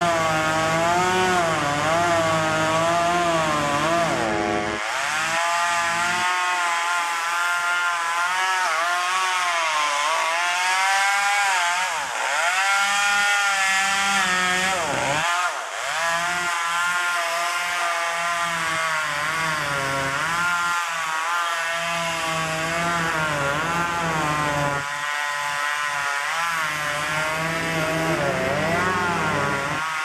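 Gasoline chainsaw cutting into a standing tree trunk, its engine pitch repeatedly rising and falling as the chain bites into the wood and frees up again.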